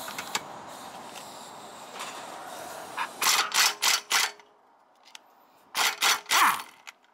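Pneumatic hand tool worked against a car's front wheel hub in short trigger bursts: four quick bursts about three seconds in, then three more near the end, the last winding down in pitch. A steady hiss comes before the bursts.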